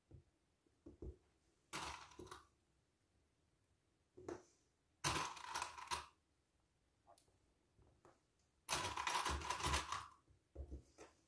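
Soft rustling of minky fabric being handled and smoothed flat on a tabletop, in three short spells. Small clicks come from plastic sewing clips being snapped onto the fabric edge.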